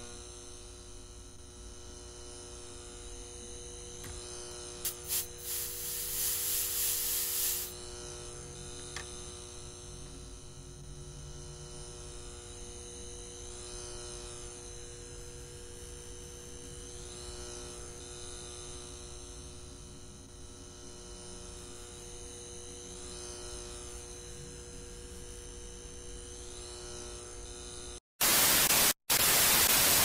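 Steady electrical mains hum with several steady buzzing tones, with a louder hiss from about five to eight seconds in. Near the end, loud white-noise static cuts in suddenly and drops out briefly a couple of times.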